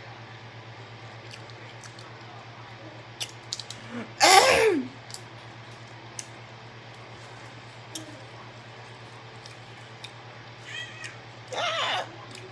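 A steady low hum with scattered small clicks, broken by two short, loud vocal sounds: the first, about four seconds in, falls in pitch; the second comes near the end.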